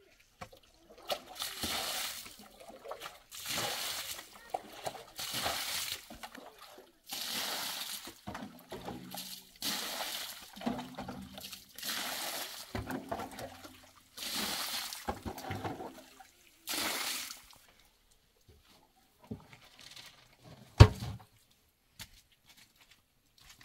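Water scooped from a metal trough with a pan and poured out onto dirt ground, splashing in about eight pours of a second or two each. A single sharp knock near the end.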